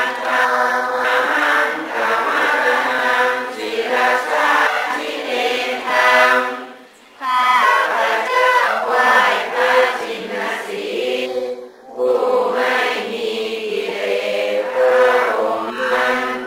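Voices singing a slow, chant-like melody without accompaniment, with short pauses about seven and twelve seconds in.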